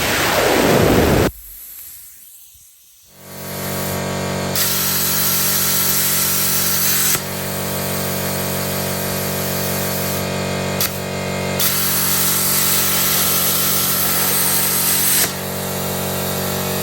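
Pulse MIG welder arc buzzing steadily in several runs on a small piece of steel, with a hiss over the buzz. It opens with a loud hiss that cuts off about a second in.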